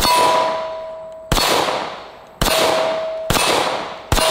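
Ruger-57 pistol firing 5.7x28mm rounds: five sharp shots about a second apart, each followed by the ringing of a struck steel target.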